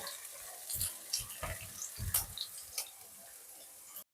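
Chopped green onions frying in oil in a deep pan, sizzling steadily while a utensil stirs them, with irregular knocks and scrapes against the pan. The sound cuts off suddenly near the end.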